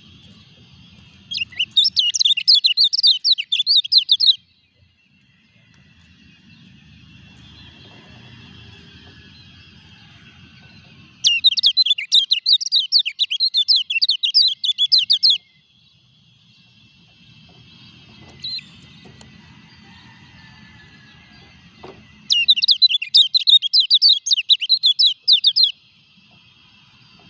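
A caged kecial kuning, a white-eye, sings three bouts of rapid, high twittering chatter. Each bout lasts three to four seconds, and they come about ten seconds apart. The bird is in moult (ngurak) and still singing.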